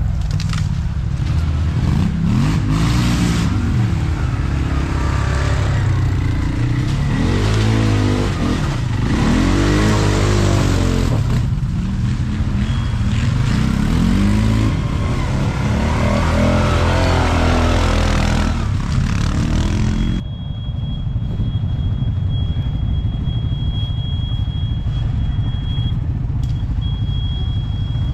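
ATV engines revving up and down again and again under throttle. About two-thirds of the way through, the sound changes abruptly to a steadier low engine rumble.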